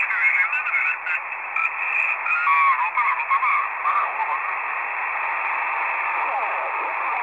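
Shortwave radio receiving lower-sideband signals on the 40-metre amateur band: a garbled, warbling single-sideband voice over hiss for about the first three seconds, then mostly static with faint sweeping tones.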